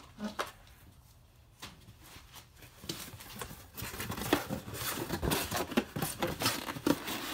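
Cardboard box being fetched and handled: a few scattered taps and rustles at first, then from about three seconds in a busy stretch of cardboard rustling, scraping and clicks.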